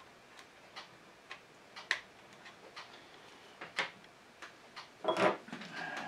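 Faint, light ticking, two or three small clicks a second, with a louder brief rustle about five seconds in.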